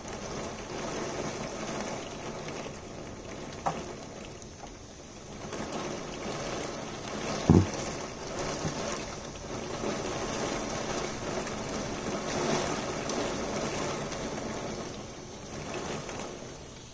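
Storm wind gusts and heavy wind-driven rain beating on a window, the noise swelling and easing in waves. A single sharp knock sounds about seven and a half seconds in.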